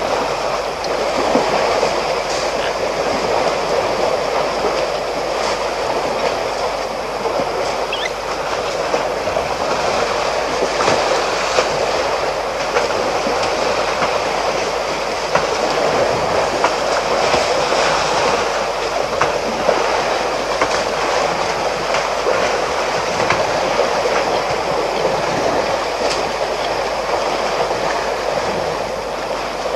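Water sloshing and splashing as elephants wallow in a shallow, muddy waterhole: a steady rushing noise with scattered small splashes.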